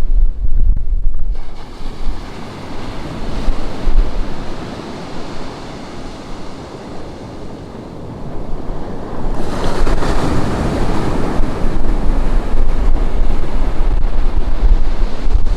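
Ocean surf washing on a beach, with a wave breaking and surging in louder about nine and a half seconds in. Wind rumbles on the microphone, heaviest at the start and near the end.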